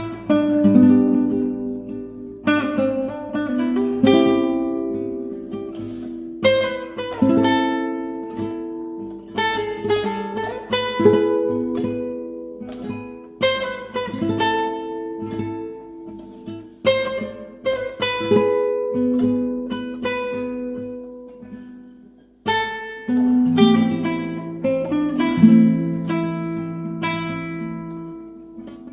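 Solo guitar playing an instrumental melody, with chords struck every second or two and left to ring and die away under picked melody notes. There is a brief pause about two-thirds of the way through before the playing resumes.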